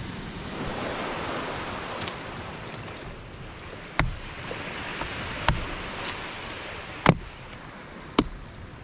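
Machete chopping into the husk of a green coconut: a lighter knock about two seconds in, then four sharp whacks roughly a second and a half apart, over a steady wash of surf and wind.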